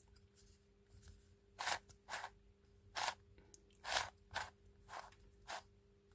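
Plastic layers of a Sloppy Cube twisty puzzle clacking as they are turned and shifted by hand: about seven short, sharp clicks, starting about a second and a half in.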